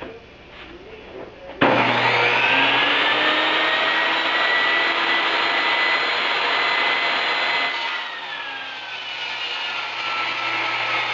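An electric woodworking power tool switches on abruptly about one and a half seconds in, its motor whine rising as it spins up and then running steadily. Near the last third the whine drops in pitch and the sound gets somewhat quieter, but it keeps running.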